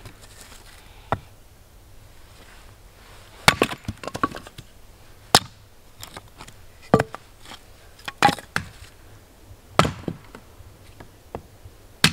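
Hatchet splitting firewood into kindling: a series of sharp chopping strikes into wood at uneven intervals, some in quick pairs, with the wood cracking as it splits.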